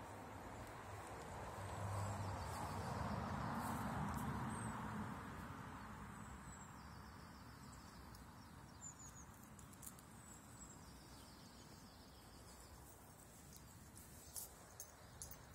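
Quiet outdoor ambience with small birds chirping now and then. A low, smooth swell of noise rises and fades over the first few seconds. A few faint clicks come near the end.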